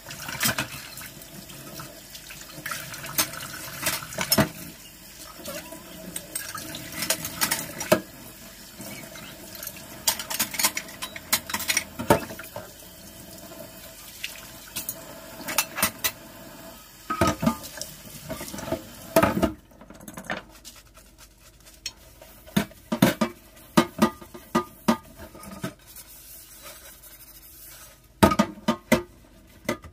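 Kitchen tap running into a stainless-steel sink while plates and a metal bowl are rinsed, with clinks and knocks of dishware against the sink. About two-thirds of the way through the water stops, and what follows is sharper clatter and scrubbing as a frying pan is washed with a sponge.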